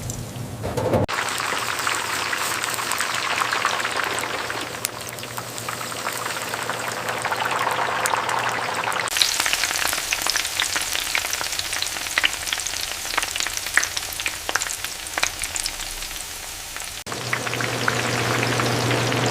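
Food frying in hot oil: a steady sizzle full of sharp crackles and pops. The sound changes abruptly about a second in, around nine seconds and near the end, and a low steady hum runs under the first and last parts.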